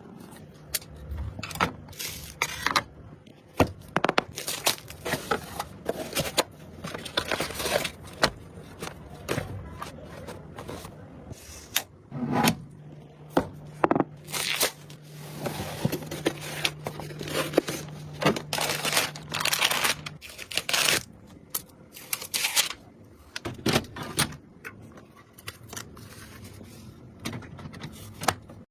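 Clicks, taps and short scrapes of computer hardware being handled and fitted together during a PC assembly, over a steady low hum for the first two-thirds.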